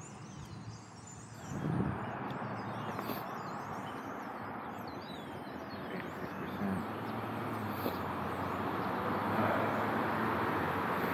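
Road traffic at an intersection: cars passing, their tyre and engine noise growing louder toward the end, with birds chirping faintly in the first half.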